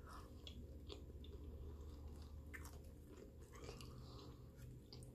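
Faint crunching of a raw cucumber slice being chewed, with many small crisp crunches.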